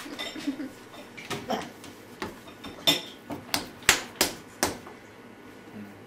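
Irregular series of sharp clicks and light knocks, about a dozen in a few seconds and loudest in the middle, as small egg-dyeing things are handled on a wooden table.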